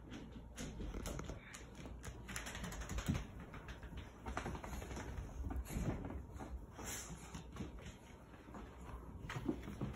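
Small dog drying itself off by scrambling and rubbing on a shag carpet: quick, irregular scratches and taps of paws and claws.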